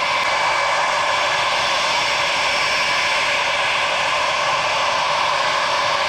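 Four-engine Boeing 707 jetliner taxiing, its jet engines giving a steady rushing noise with a faint high whine running through it.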